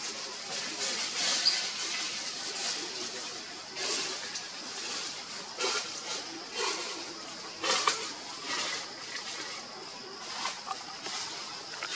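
Outdoor ambience: a steady high-pitched hum, with scattered short crackles and rustles, the sharpest about four and eight seconds in.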